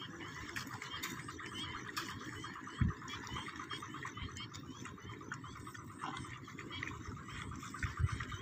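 A chorus of frogs calling from a flooded rice paddy: a dense, steady run of rapid repeated croaks. A low bump about three seconds in and a couple more near the end.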